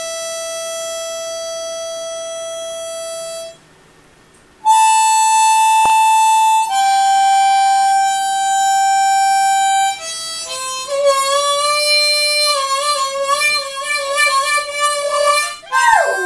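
Harmonica playing long held notes, with a short break about four seconds in and wavering notes from about ten seconds on. Right at the end a Great Dane puppy joins in with a howl that rises and falls.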